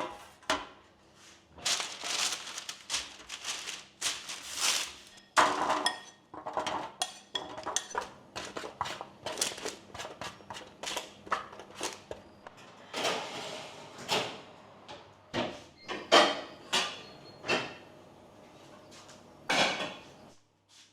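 Dishes and utensils being handled: irregular clinks, knocks and scraping, one after another with short pauses.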